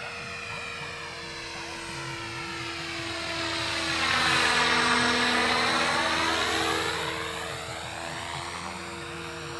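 Align T-Rex 500 electric RC helicopter in flight, the steady whine of its motor and rotor swelling to its loudest about halfway through with a sweeping whoosh as it passes close, then fading again.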